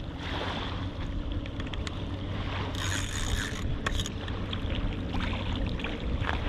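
Steady wash of wind and water with a low rumble underneath, a few faint clicks, and a brief hiss about three seconds in.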